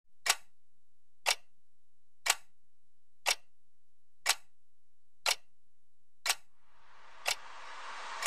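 Clock ticking once a second, eight even ticks over a faint low hum. About seven seconds in, the noise of a cheering crowd begins to swell up.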